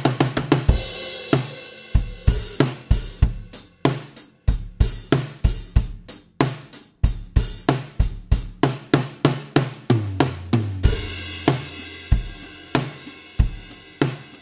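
Drum kit groove with a low-tuned, dead-sounding snare whose tone is kept short by the two slackened lugs nearest the player, together with bass drum, hi-hat and cymbals. A cymbal crash comes about half a second in and another near the end.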